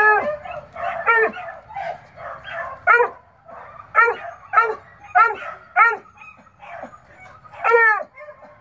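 Beagle giving a string of short, high yelps, about eight spaced irregularly, as it works the fresh scent of a rabbit that has just hidden.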